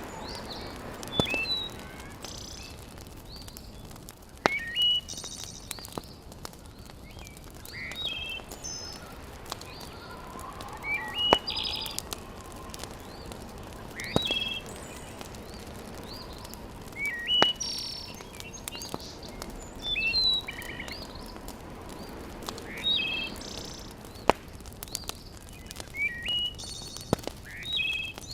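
A bird repeating a short phrase of rising chirps about every three seconds over a steady hiss, with sharp pops and crackles from a wood fire scattered through.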